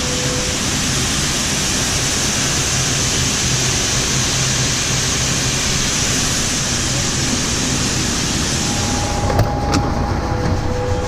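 Steady rushing road and wind noise over a low engine hum from a grain truck on the move. About nine seconds in the hiss drops away and a click sounds.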